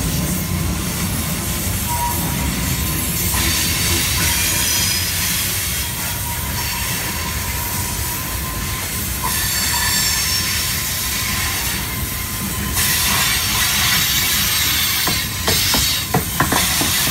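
Train cars rolling past on the rails, with steady wheel rumble and thin, high wheel squeal. A run of sharp clacks comes near the end, as wheels pass over rail joints.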